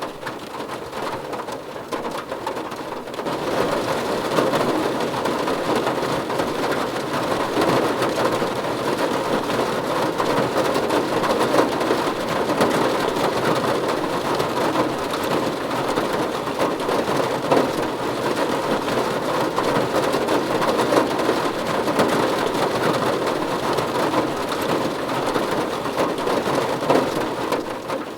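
Rain drumming on a car's roof and windows, heard from inside the car: a steady, dense patter of drops. It grows heavier about three seconds in and eases slightly near the end.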